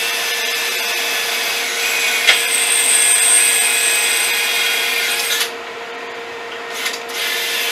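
Power drill with a long 1/4-inch bit drilling holes through a sheet-metal fender. The motor runs steadily, with a high squeal from the bit cutting for about two seconds partway through. It stops about five and a half seconds in, then after a short blip runs again briefly near the end.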